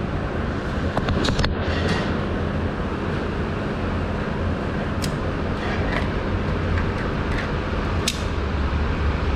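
Steady low rumble of background noise, with a few sharp clicks about a second in, near five seconds and near eight seconds.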